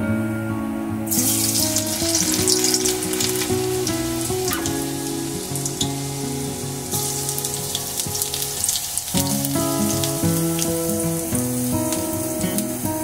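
Hot oil in an aluminium kadai sizzling as a tempering of seeds and green leaves fries. The sizzle starts suddenly about a second in and grows louder again around seven seconds, when more goes into the oil.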